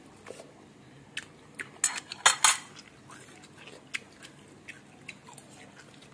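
Metal spoon clinking and scraping against a ceramic rice bowl while rice is scooped up. A cluster of sharp clinks comes about two seconds in, with lighter taps after.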